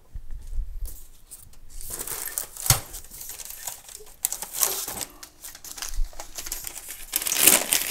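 Cardboard and packaging rustling and scraping with scattered knocks and clicks as parts are pulled out of a shipping box, the rustling loudest near the end.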